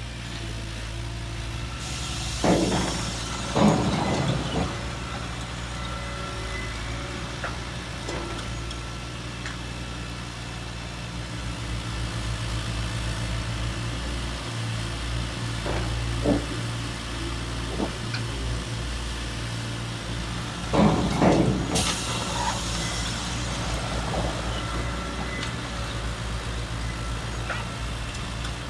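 Radio-controlled model trucks and excavators running with a steady low engine-like hum, with two loud bursts of rattling clatter, one about three seconds in and one about twenty seconds in, and a few sharp clicks between them.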